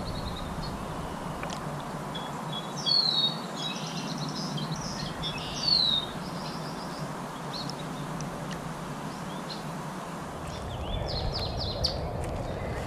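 Wild birds calling over a steady outdoor background hiss: short falling whistled notes stand out about three and six seconds in, and a quicker run of chirps comes near the end.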